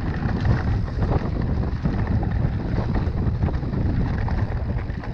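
Wind buffeting the camera microphone over the rumble of mountain bike tyres running fast on a dirt forest trail, with frequent short knocks and rattles from the bike going over bumps. It gets a little quieter near the end.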